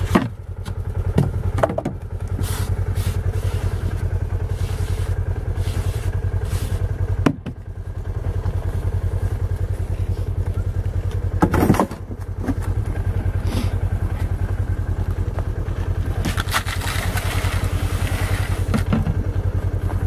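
An engine idling steadily, with scrapes and knocks as snow is shoveled out of a cattle feed trough and a longer rustling scrape near the end.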